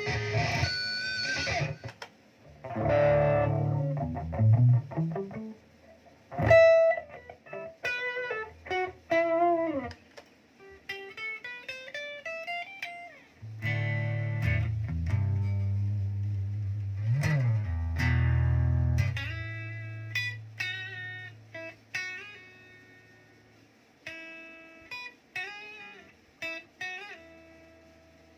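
Electric guitar played through a Zoom G1Xon multi-effects pedal. Strummed chords at first, then picked single-note lines with slides, a few seconds of held low chords in the middle, and melodic single notes near the end.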